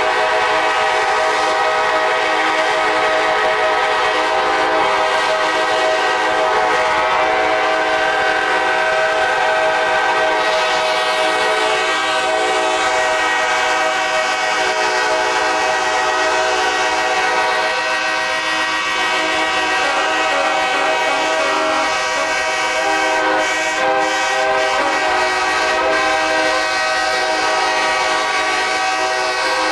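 Locomotive air horns sounding continuously without a break, a loud steady chord of several notes whose mix shifts a little partway through.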